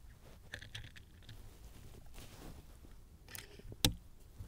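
Small mechanical clicks from an FX Panthera .22 PCP air rifle's action being worked to load a round, with a sharper, louder click near the end.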